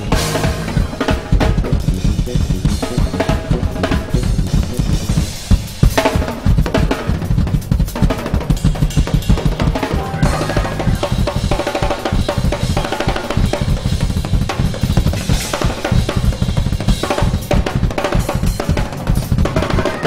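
Drum kit played fast and dense: rapid bass drum strokes under snare hits and cymbals, with a few loud cymbal crashes.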